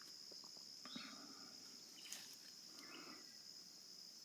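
Faint, steady high-pitched drone of an insect chorus in woodland, with a few soft ticks and rustles.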